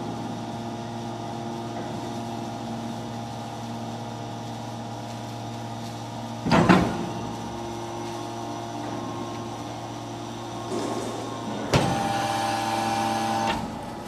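Hydraulic scrap metal baler running: the hydraulic power unit's motor and pump keep up a steady hum, with a loud metallic clang about six and a half seconds in as the press moves. Near twelve seconds a knock is followed by a louder, higher whine for about two seconds as the cylinders work under load, opening the lid and ejecting the bale.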